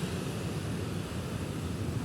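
Busy city road traffic: cars, buses and motorbikes passing as a steady low rumble of engines and tyres.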